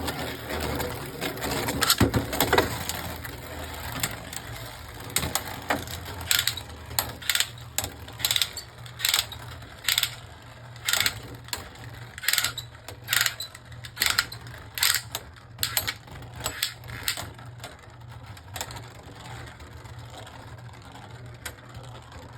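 Two Beyblade Burst spinning tops whirring in a plastic stadium and striking each other again and again, with sharp clicks about twice a second through the middle of the battle that thin out near the end.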